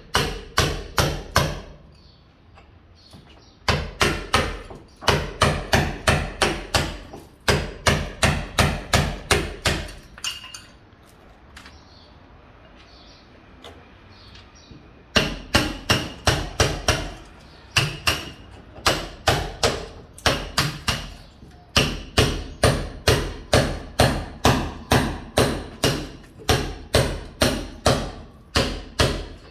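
Mason's hammer striking repeatedly, about three blows a second, in runs of several seconds broken by short pauses, with a longer lull from about ten to fifteen seconds in.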